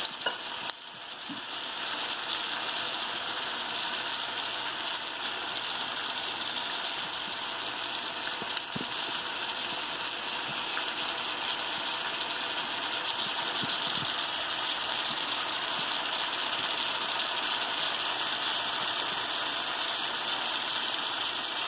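Vegetables and pork belly frying in a wok: a steady sizzling hiss.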